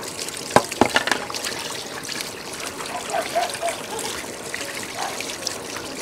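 Steady trickle of running water, with a few sharp clicks in the first second.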